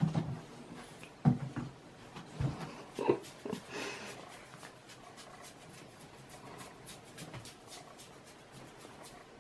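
A cat being handled and stroked in a plastic cat bed: a few short knocks and rustles in the first three seconds, then soft rustling of fur under the hand.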